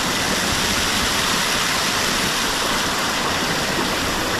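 Steady rush of pouring and splashing water from water-park fountains and slides.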